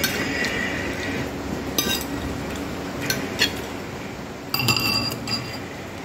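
Tableware clinking during a meal: a few sharp light clinks, then a short cluster near the end with a brief ringing tone, like utensils on a plate or glass.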